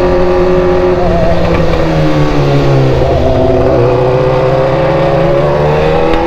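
BMW engine running through a loud open exhaust; the revs drop about a second in, hold lower, then climb again near the end.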